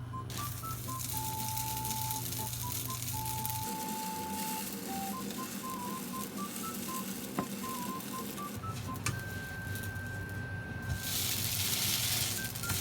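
Food sizzling in a hot frying pan, a steady hiss that gets louder near the end, with a couple of sharp clicks of a utensil against the pan.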